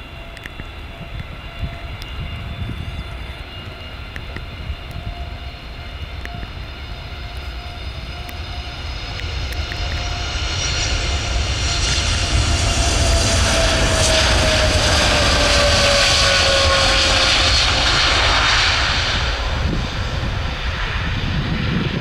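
Boeing 787-8 Dreamliner's jet engines at takeoff power during its takeoff roll. The sound grows steadily louder to a peak as the jet passes, with a whining engine tone that falls slowly in pitch as it goes by, over a constant low rumble.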